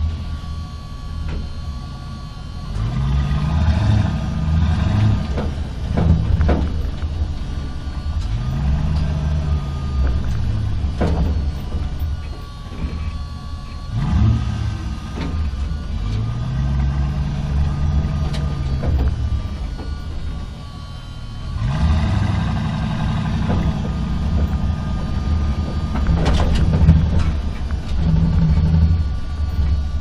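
Truck engine driving through a parking structure. The engine note rises and falls in several long swells, then holds a steadier, louder run near the end.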